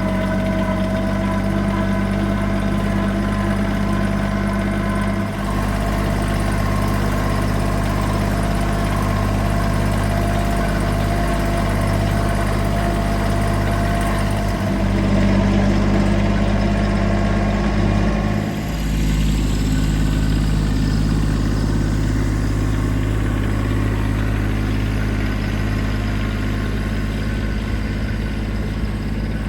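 A vehicle engine running at a steady speed, its tone shifting slightly about 18 seconds in.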